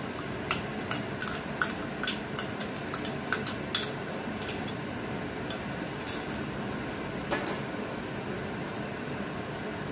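A metal spoon clinking and scraping repeatedly against a glass bowl as a wet tomato-chilli paste is tipped into hot oil, over a steady sizzle of potatoes frying in a kadai. The clinks come thick for about four seconds, then only once or twice more.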